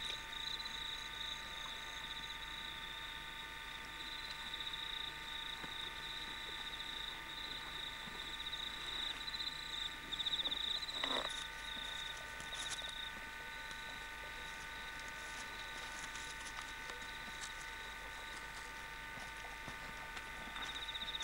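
Steady, faint high electronic whine of an old camcorder recording, with scattered light clicks and rustles and one brief louder rustle about eleven seconds in.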